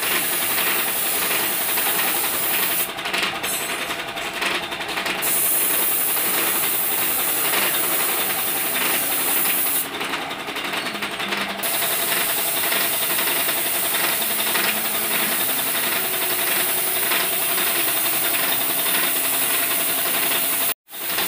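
Compressed-air spray gun spraying clear coat: a loud, steady hiss of air and atomised paint that eases off twice for a second or two, over a faint steady hum.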